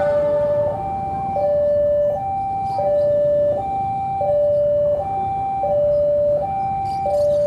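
Electronic railway level-crossing warning alarm sounding a steady two-tone hi-lo cycle, one pair of tones about every one and a half seconds, over the low rumble of an approaching diesel locomotive.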